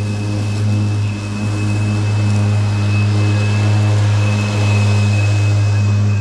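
Ryobi 80V HP brushless electric lawn tractor mowing tall, thick grass: the spinning deck blades and motors give a loud, steady low hum with a thin high whine over it.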